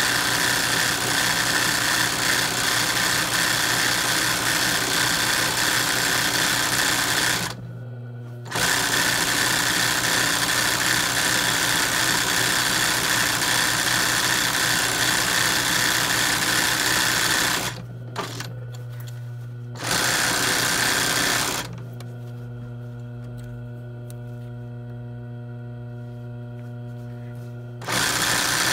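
Royal sewing machine stitching free-motion embroidery on hooped cotton cloth, running fast in long bursts. It stops briefly about a quarter of the way in, stops again just past halfway, runs a short burst, then rests for several seconds near the end, with a steady low hum carrying on through the pauses.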